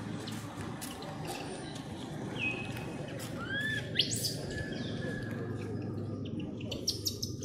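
A few short whistled chirps and calls, one falling note and then arched and sharply rising notes, between about two and four seconds in. They sit over a steady low background hum with scattered light clicks.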